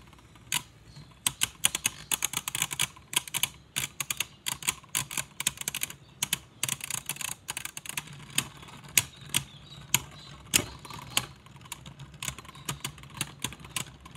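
Two Beyblade Burst spinning tops clashing in a plastic stadium: a dense, uneven run of sharp clicks and clacks, several a second, as they knock into each other.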